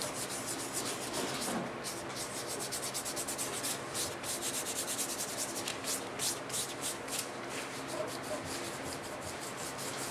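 Fingertips rubbing dried masking fluid off watercolour paper, a dry scratchy hiss in quick, repeated strokes.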